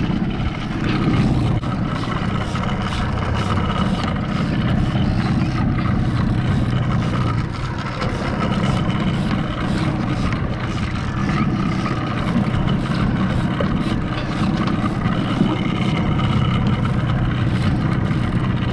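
Small outboard motor running steadily as the skiff moves, with water washing and splashing around the hull.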